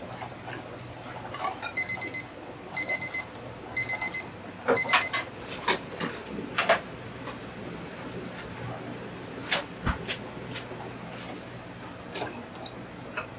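Electronic kitchen timer beeping: four short runs of quick beeps about a second apart, starting about two seconds in. Sharp clatters of utensils and dishes come in among and after them.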